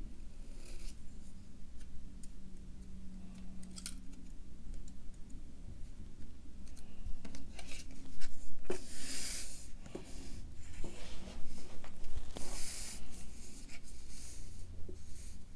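Paper-craft handling: small clicks of metal tweezers against a paper strip and card, then a sheet of card stock sliding and rubbing across a tabletop twice as it is turned around.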